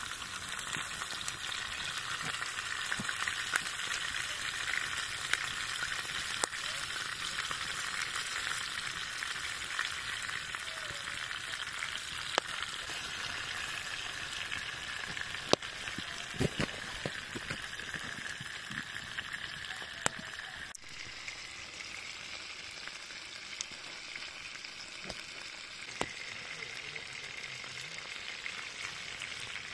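Flour-dusted pike pieces sizzling steadily in oil in a cast-iron skillet over a campfire, with a few sharp pops scattered through. The sizzle drops slightly about two-thirds of the way in.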